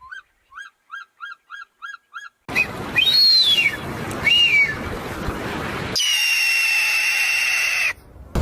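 A string of different bird calls that change abruptly. First comes a rapid series of about seven short, rising pitched notes. Next are two arching whistled calls over background hiss. Last is a steady high whistle held for about two seconds.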